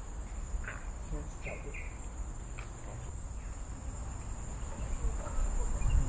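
Steady high-pitched drone of forest insects. A few short chirps sound about a second in, and a low rumble grows louder near the end.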